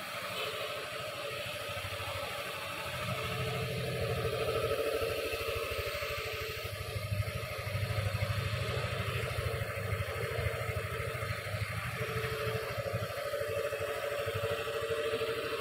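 Honda Forza scooter's engine idling steadily, a fast, even run of firing pulses.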